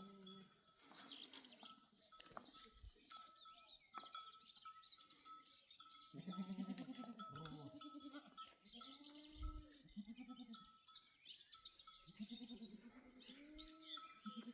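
A flock of goats and sheep bleating, faint, with a run of several bleats starting about six seconds in.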